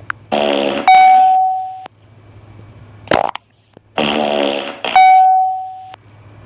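Fart sounds played twice in an identical pattern: a raspy half-second fart followed at once by a loud ringing tone that fades over about a second. A shorter fart sounds between the two.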